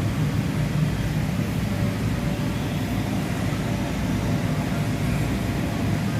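Steady low drone of the electric blower fans that keep inflatable bounce houses and slides inflated.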